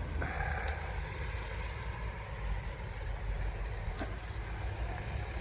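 Road traffic: a steady rumble of vehicles running nearby, with a couple of faint clicks.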